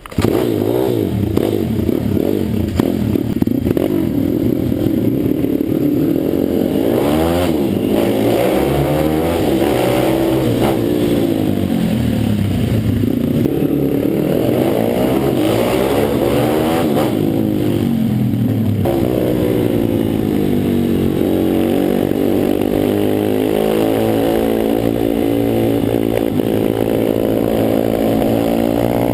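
Pit bike engine revving up and down repeatedly as the bike is ridden. About two-thirds of the way in it settles into a steadier drone whose pitch climbs slowly.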